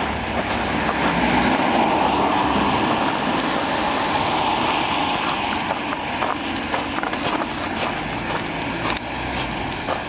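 A car driving past on a wet, slushy street: engine and tyre noise swelling over the first couple of seconds, then fading away.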